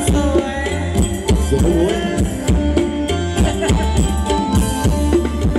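Thai ramwong dance music from a live band over loudspeakers: drums keep a steady beat under a sustained melody.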